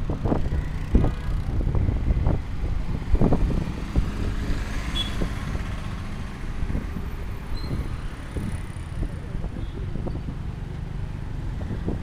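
Street traffic: vehicles passing on a busy road, with a brief hiss about five seconds in. Wind buffets the microphone, giving a low rumble and uneven thumps in the first few seconds.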